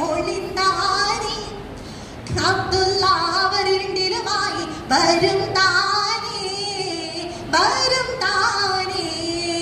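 A woman singing a Mappilapattu (Malabar Muslim folk song) solo and unaccompanied into a microphone, with long, ornamented, wavering held notes and a short breath pause about two seconds in.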